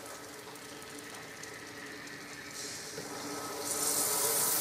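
Steady hiss of pump saver protectant being forced through a pressure washer pump, with the trigger held open. It gets louder about two and a half seconds in and again just before four seconds.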